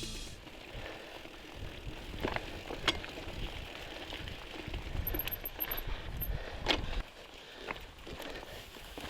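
Bicycles moving over a rough dirt track: scattered clicks and rattles over a low rumble that drops away about seven seconds in.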